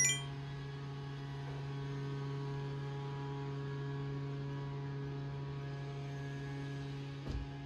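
A steady electrical-style hum that holds one pitch throughout, with a brief high, bell-like ding right at the start and a soft low thump near the end.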